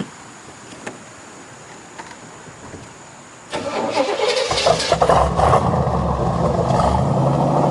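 1973 Corvette's 454 LS4 big-block V8 being started. A few light clicks come first. About three and a half seconds in, the starter cranks, the engine catches about a second later and runs on steadily, sounding healthy.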